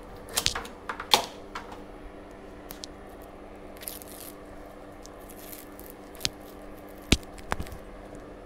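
Ten-gauge copper wire pulled through a homemade wire-stripping block held in a vise, a knife blade in the block's saw kerf slitting the insulation. Sharp clicks and scraping come in the first second or so, then a brief rustle and a few single sharp knocks as the stripped wire is handled.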